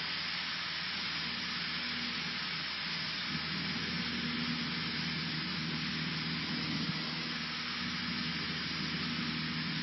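Cessna 152 in flight heard from inside the cabin: the steady drone of its four-cylinder Lycoming engine and propeller under a constant rush of air noise.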